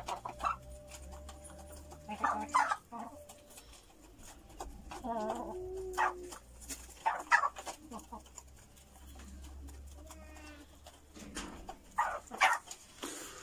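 Local free-range chickens clucking and calling while feeding at a grain trough, with short sharp calls every few seconds and a few longer, wavering calls between them.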